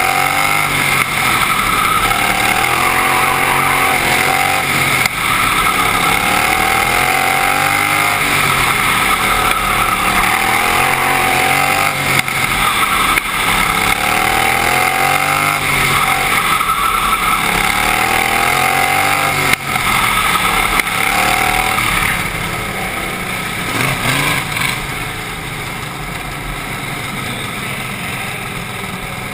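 Outlaw racing lawn mower engine heard from the driver's seat, revving up and dropping back in a repeating cycle every few seconds as it is driven hard round an oval track. About 22 s in the revs fall away and the engine settles to a lower, steadier running.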